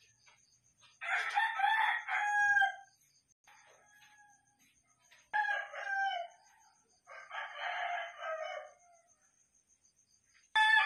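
Rooster crowing, four crows with quiet gaps between them: a loud one about a second in, another at about five seconds, a fainter one just after it, and a fourth starting near the end.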